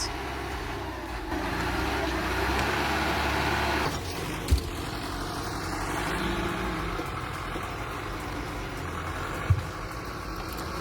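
Diesel engine of a heavy 122-horsepower forestry machine running steadily. It gets louder about a second in and drops back near the middle, with two short knocks, one near the middle and one near the end.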